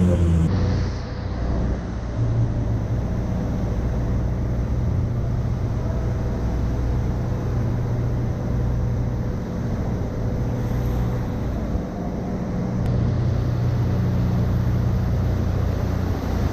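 Outboard motors of inflatable assault boats running with a steady low rumble.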